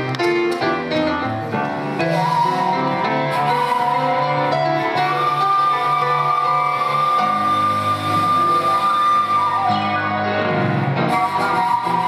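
Duet of grand piano and a long end-blown flute: piano notes move quickly at first, then the flute holds long high notes, stepping up about five seconds in and back down near the end, over low held piano notes.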